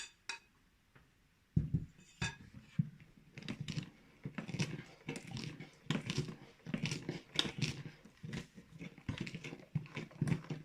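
Cake batter being stirred by hand in a bowl, utensil scraping and knocking in repeated strokes, about two or three a second, after a single clink against the bowl at the start.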